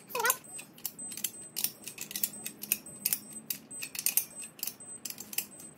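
Ratchet of a click-type torque wrench clicking as it tightens the cylinder-head nuts on an air-cooled VW engine to the first 11-pound pass of the torque sequence: a run of quick, uneven metallic clicks.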